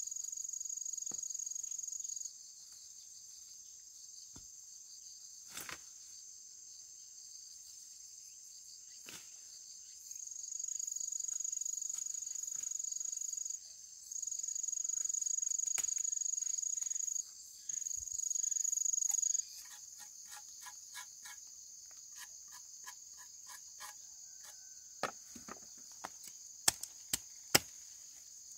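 Insects calling in a steady high chorus. A louder, even shrill switches on and off several times. In the last third come a run of quick, evenly spaced knocks, then a few sharp, loud knocks like chopping or hammering.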